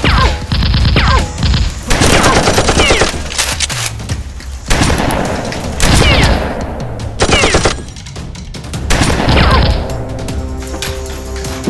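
Bursts of rapid automatic gunfire, a dubbed-in firearm sound effect rather than the real sound of the foam blasters, over background music. The bursts come in several volleys a second or two long with short breaks between them.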